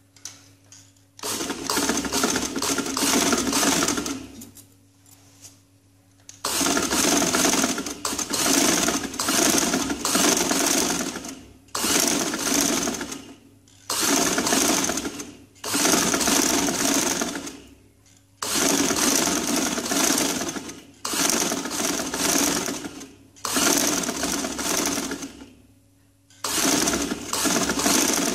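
Old black domestic sewing machine stitching along a strip of piping in short runs of two to three seconds, stopping briefly between them, about ten runs in all, starting about a second in.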